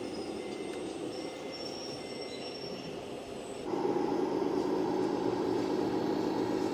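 Radio-controlled model construction vehicle running, its electric motor and gears whining steadily, stepping up in loudness suddenly about two-thirds of the way through.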